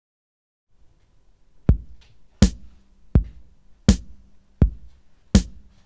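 Song intro drum beat: kick drum and snare alternate in a steady rhythm, one hit about every three quarters of a second, starting about a second and a half in after a faint low hum.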